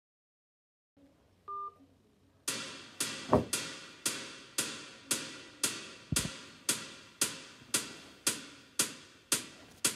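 Intro of a backing music track: a short electronic beep, then a single sharp percussion hit repeating evenly about twice a second, each dying away quickly.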